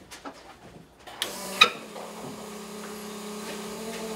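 Electric fuel pump of a 1977 Porsche 911 Turbo switching on with two sharp clicks about a second in, then running with a steady hum. It is pumping against a closed fuel return, building full-flow pressure.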